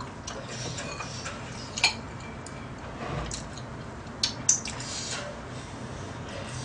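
Chopsticks and a spoon clicking against a bowl while noodles are eaten: one click about two seconds in and two quick clicks about four and a half seconds in, with soft eating sounds in between.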